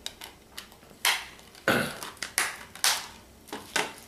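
Handling noises from a plastic Blu-ray case and padded mailers: a few sharp plastic clacks and rustles, about four louder ones with lighter ticks between, as the case is closed and put down and a package is picked up from a stack.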